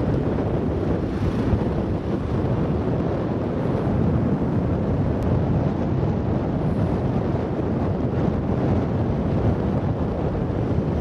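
Wind buffeting the microphone: a steady low rumble with no clear events in it.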